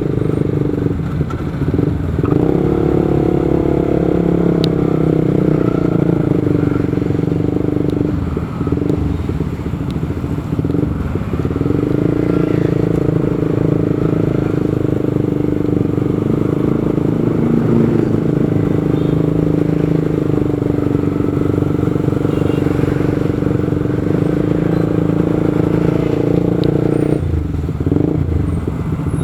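Motorcycle engine running steadily under way, its note dipping briefly a few times.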